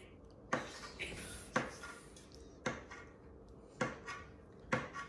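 Sharp kitchen knocks, five in all about a second apart, each with a short ringing tail, like utensils striking dishes.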